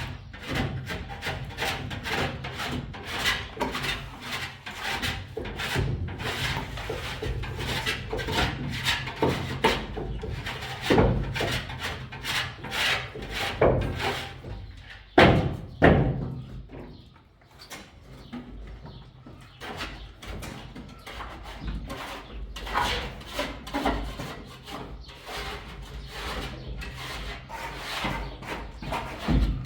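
Rapid, irregular rubbing and scraping strokes, as of something worked against wood, with two loud knocks about halfway through.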